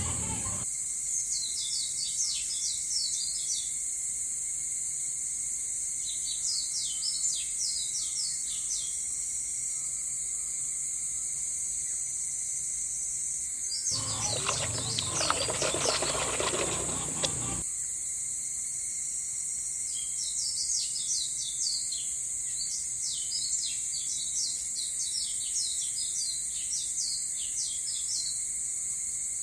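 Outdoor nature ambience: a steady high insect drone with spells of short bird chirps. Near the middle, a louder, noisier sound lasts about three and a half seconds.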